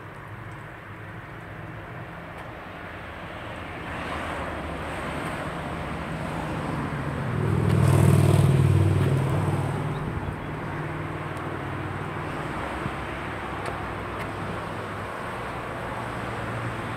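A road vehicle passing close by, its engine and tyre noise swelling to a peak about eight seconds in and then fading, over steady road and outdoor background noise.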